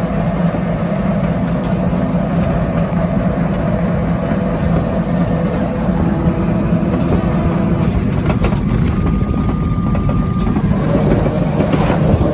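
Auto-rickshaw engine running steadily with road noise, heard from on board. A short high steady tone comes in about nine seconds in.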